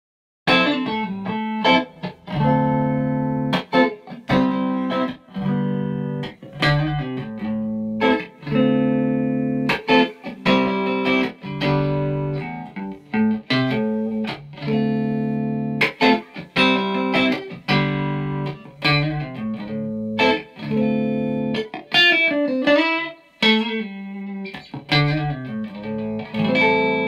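Electric guitar, a Fender American Professional Stratocaster, played through a Vox MV50 AC Nutube amp head and Vox BC112 cabinet: chords picked and struck over and over, each ringing briefly, with a couple of bent notes in the last few seconds and a final chord left ringing.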